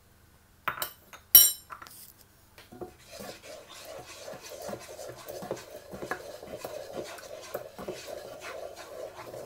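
A metal spoon taps twice against a small metal saucepan, the second tap loud and ringing. Then a wooden spatula stirs and scrapes steadily around the inside of the pan, mixing wheat flour into milk.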